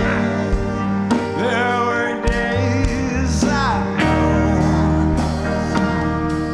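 Background music: a country-style song with guitar.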